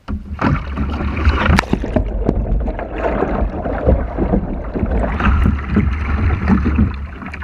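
Kayak capsizing: a sudden splash, then churning, bubbling water rushing over the bow-mounted microphone as it goes under and comes back up, with many small knocks and clicks.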